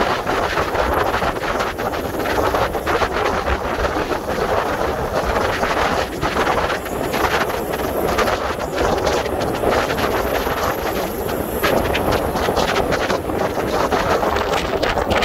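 Wind rushing and buffeting over the microphone of a camera carried on a moving road bike: a loud, steady roar of noise that flutters with gusts.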